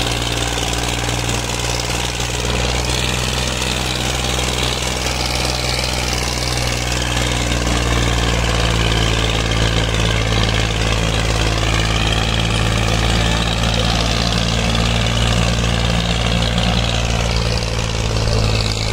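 Massey Ferguson 240's three-cylinder diesel engine running steadily under heavy load while dragging a disc harrow through the soil.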